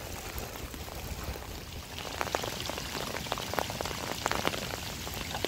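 Rain falling steadily, with sharp individual drops or drips striking a surface, more frequent from about two seconds in.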